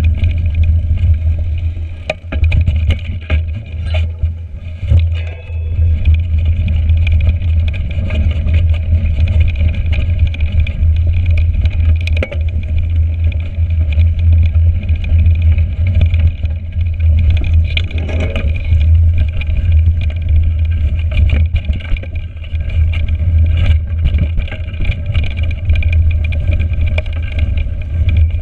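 Mountain bike ridden over a rough frozen forest trail, heard from a handlebar-mounted camera: a heavy, steady wind rumble on the microphone, with tyre noise and frequent knocks and rattles from the bike over bumps.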